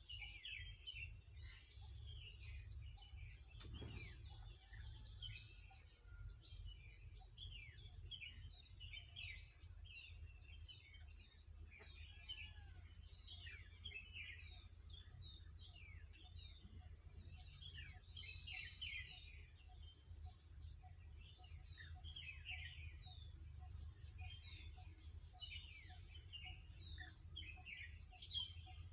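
Faint chatter of many small birds chirping and twittering throughout. A high, thin steady tone comes and goes behind them, over a low steady rumble.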